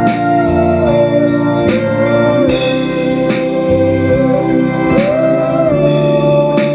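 Instrumental band music: an electronic organ holds a wavering lead melody over bass and drums, with several cymbal crashes.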